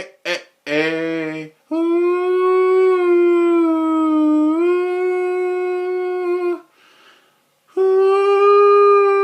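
A dog howling along in long, steady held notes: a few short broken calls at first, then one long howl of about five seconds, a short pause, and a second long howl near the end.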